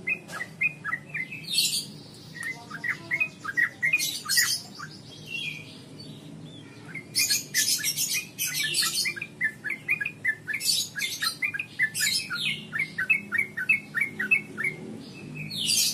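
Yellow-vented bulbul (trucukan) calling: repeated runs of quick chattering notes broken by sharp squawks.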